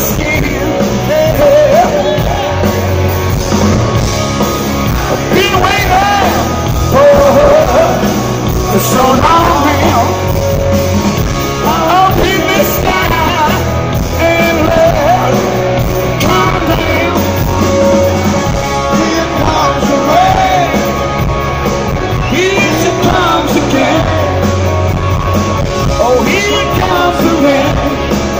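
Live hard rock band playing: a male lead singer's voice over electric guitar and drums, loud and continuous.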